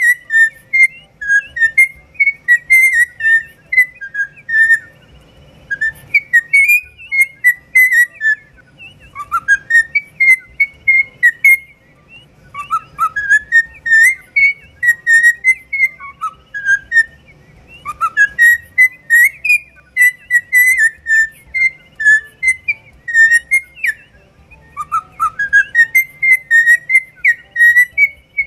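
Cockatiel whistling its song: phrases of clear whistled notes, some sliding up in pitch, repeated in runs of a few seconds with short pauses between.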